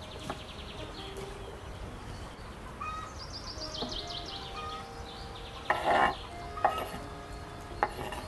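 A chef's knife knocking and scraping on a wooden cutting board, a few sharp strokes with the loudest about six seconds in. Birds chirp in quick trills in the background.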